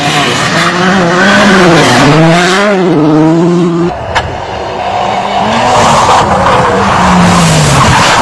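Rally car engines revving hard on a gravel stage, the pitch climbing and dropping again and again with throttle and gear changes. About four seconds in there is an abrupt cut with a click, and a second car's engine takes over, rising and falling with more hiss of tyres on loose gravel.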